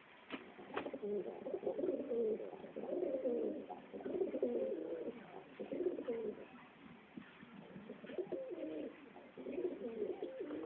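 Pet birds cooing in repeated low, warbling phrases about a second long each, with two sharp clicks near the start.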